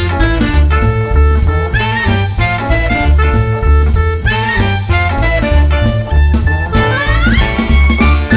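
Jazz background music with horns, bass and drums.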